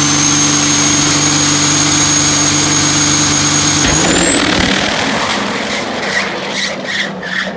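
Turbocharged diesel pickup held at high revs on the drag-strip start line, a steady high turbo whistle over the engine note. About four seconds in it launches: the whistle rises in pitch and the sound fades a little as the truck pulls away.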